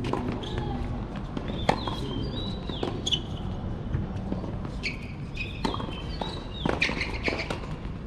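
Tennis rally on an outdoor hard court: sharp pops of rackets striking the ball and the ball bouncing, a second or more apart, with short high squeaks in between.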